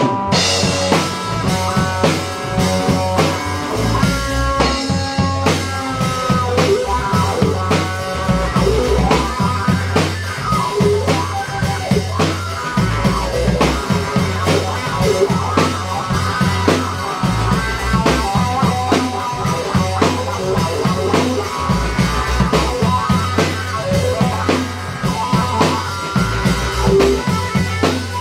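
Live blues-rock band: a Stratocaster-style electric guitar playing a lead solo with bent notes over a drum kit keeping a steady beat and low bass notes.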